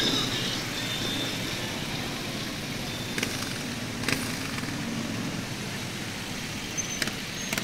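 Several motorcycles riding slowly past in a parade column, engines running at low revs. A few short sharp clicks sound over it.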